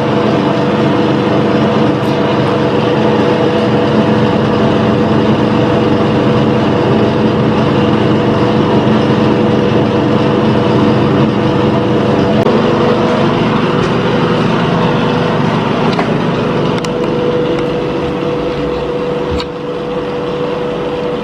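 A steady mechanical drone: an even rush with a constant low hum running through it, easing slightly near the end.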